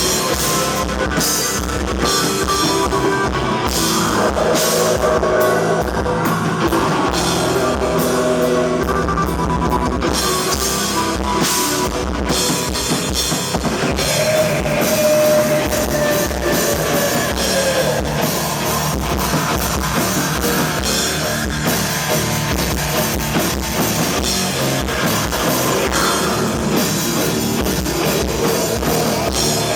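Black metal band playing live: fast, dense drum kit with distorted guitar, at a steady loud level.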